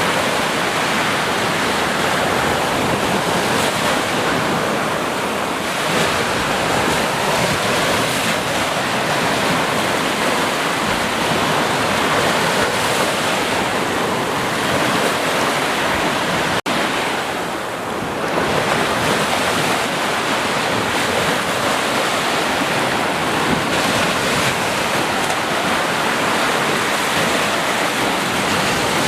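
Ocean surf: a steady rush of waves breaking and washing, with a split-second dropout a little over halfway through.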